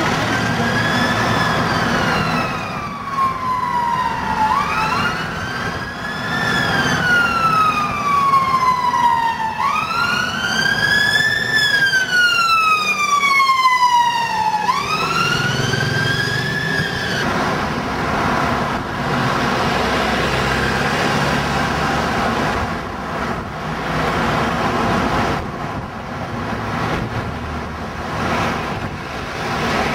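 Emergency vehicle siren wailing in long sweeps, each rising quickly and falling slowly, about one every five seconds, over steady road traffic. The siren stops a little past halfway, leaving only the traffic.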